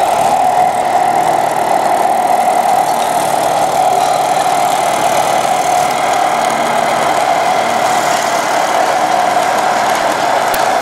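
Engine sound of a radio-controlled scale construction model, a steady diesel-like drone running without letup, with a couple of sharp clicks near the end.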